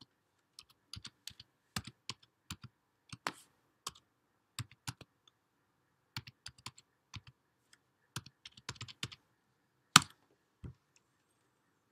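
Computer keyboard typing: irregular runs of key clicks with short pauses between them. A single louder keystroke about ten seconds in enters the command.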